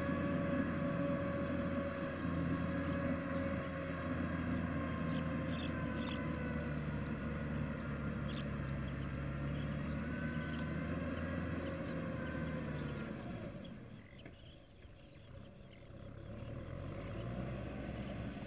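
Distant tractor engine running steadily. It fades away about thirteen seconds in and comes back near the end, rising in pitch. Faint short high chirps sound over it early on.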